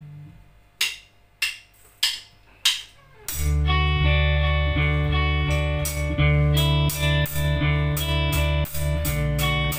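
Four evenly spaced drum clicks count the band in, then about three seconds in a rock band comes in loud: electric guitar, bass guitar and drum kit playing the song's intro.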